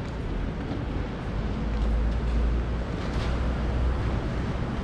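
Rainy city street ambience: a steady hiss, with a low rumble that swells from just after the start to about four seconds in.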